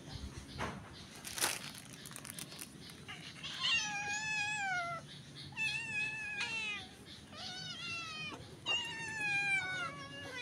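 A domestic cat meowing four times, each meow drawn out and falling in pitch, starting about three seconds in. Two short sharp noises come before the meows.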